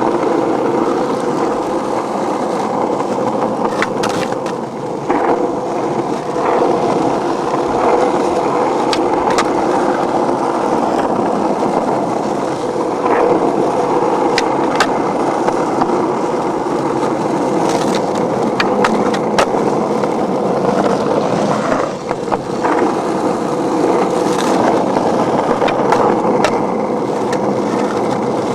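Skateboard wheels rolling steadily over rough pavement, with scattered sharp clicks and ticks throughout.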